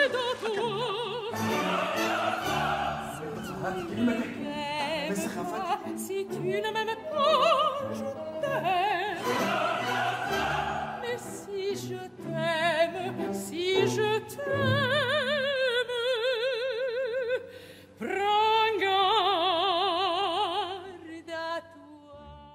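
Operatic singing with wide vibrato over classical accompaniment, fading out at the very end.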